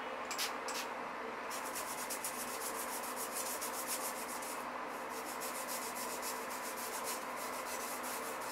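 Toothbrush bristles scrubbing the grout lines between glazed ceramic wall tiles in quick back-and-forth strokes, several a second, with a brief pause about halfway through. This is a light scrub to lift dark grime and mould from old grout.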